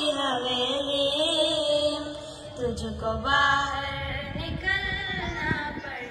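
A singer holds a long, wavering note of a devotional song over steady instrumental accompaniment, heard through a loudspeaker system. Low drum beats come in during the second half.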